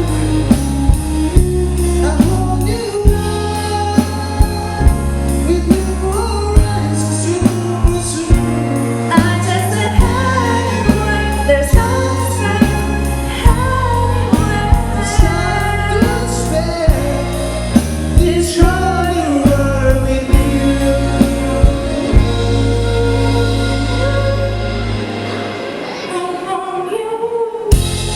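A live band plays a song with a singer, over a bass line and a steady drum beat of about two hits a second. The low end drops out briefly near the end before the beat returns.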